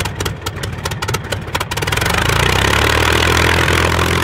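An engine picking up speed: separate firing pulses come faster over the first couple of seconds, then it settles into a steady run.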